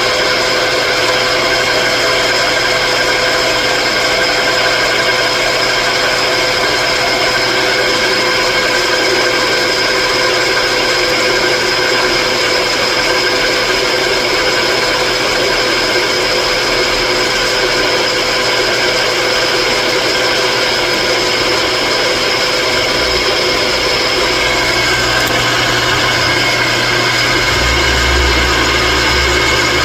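An electric power tool or shop machine motor running steadily, with a constant multi-tone whine over a noisy hiss. A low rumble comes in briefly near the end.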